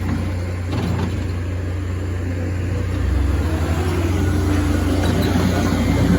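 Skid steer engine running steadily with a deep rumble, getting louder from about halfway through as it works the dirt pile.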